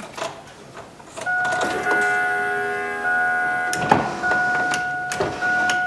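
The GMC Sonoma's warning chime repeats about every 1.2 s, each ding fading before the next, the usual key-in or door-open reminder. It comes with sharp clicks and a heavier clunk about four seconds in, from switches and the door lock or window being worked.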